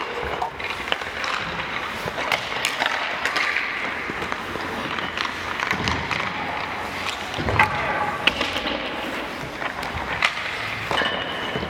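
Ice hockey skates scraping across rink ice with sticks and pucks clacking, and many short sharp knocks of pucks hitting sticks, pads and boards; the loudest knocks come about two-thirds of the way through.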